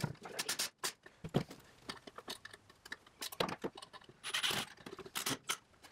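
Handling noise while a plywood bracket is fixed to a brick wall with a cordless drill-driver: an uneven run of clicks, knocks and scrapes, the sharpest knock about a second and a half in, and a short noisier burst about four and a half seconds in.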